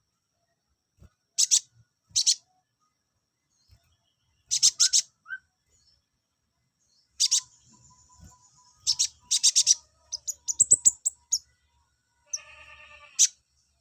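Konin songbird calls: short, sharp, high chirps in clusters separated by pauses, growing busier in the second half. Near the end comes a buzzy, nasal call with several tones together, then one more sharp chirp.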